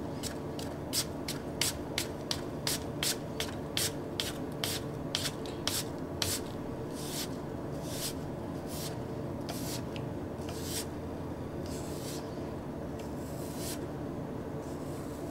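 A Tamahagane Japanese kitchen knife slicing a half apple into paper-thin slices, each cut a short crisp stroke. The strokes come quickly, about three a second, then slow to longer strokes roughly a second apart about halfway through.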